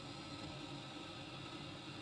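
Hand-held MAP-gas torch burning with a steady, even hiss as it heats the copper pipe inside the wall.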